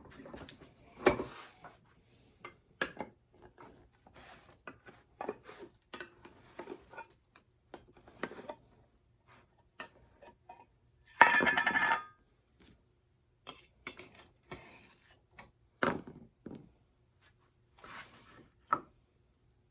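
Metal tools and a steel scraper blade handled on a workbench: scattered light clicks and knocks, with one louder metallic clang that rings briefly about eleven seconds in.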